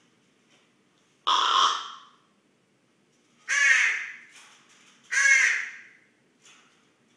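Raven making its snoring sound close up: three short, loud calls about two seconds apart, each fading out quickly.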